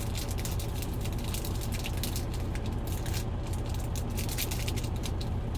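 Baseball trading cards being handled: rapid small clicks and rustles as the cards are shuffled and flipped, over a steady low hum.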